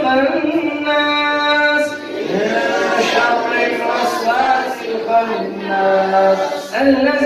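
A man singing a devotional Pashto nazm unaccompanied, holding long drawn-out notes.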